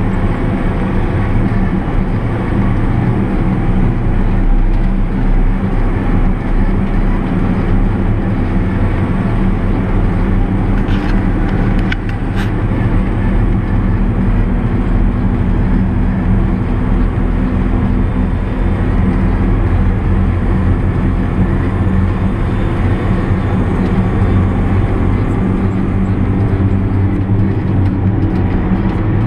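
JCB Fastrac 8310 tractor's six-cylinder diesel engine running steadily under way on the road, heard from inside the cab along with tyre and road noise.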